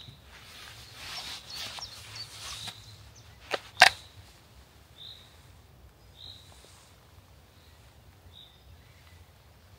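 Belt-worn knife drawn from its hard polypropylene sheath: a few seconds of rustling, then two sharp clicks about a third of a second apart. Short high bird chirps come every second or two afterwards.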